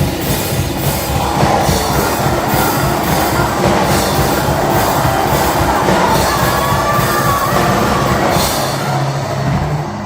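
Live band playing loud rock music, a drum beat striking about twice a second under a dense wash of instruments; the cymbals drop out near the end.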